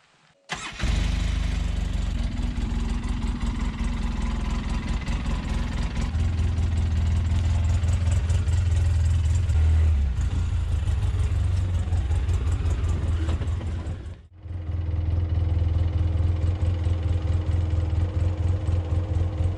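Polaris Ranger 6x6 side-by-side's engine running steadily as it drives along, heard from inside the cab. It breaks off for a moment about two-thirds through, then resumes.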